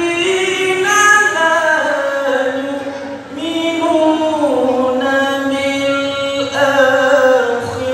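Male qari reciting the Quran in melodic tilawah style: long held notes that slide and ornament between pitches, with a brief break for breath about three seconds in.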